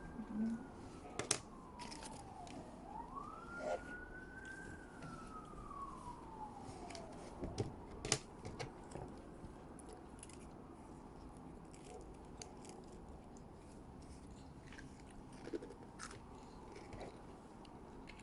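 A faint siren wailing, falling, rising and falling again slowly over about seven seconds, then fading out. Scattered small clicks and crunches run throughout.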